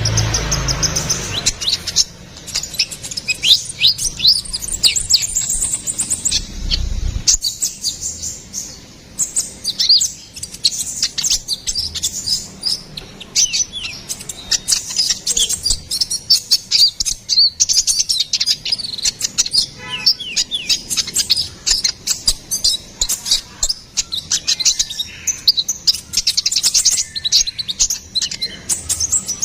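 Sunbird of the kind kicau keepers call 'konin kolibri ninja' singing a fast, continuous twittering song of rapid high chirps and quick sweeping notes, with a low rumble underneath for the first seven seconds or so.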